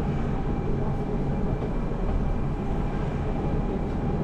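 Gornergrat Railway cogwheel train running downhill: a steady rumble with a faint even hum above it.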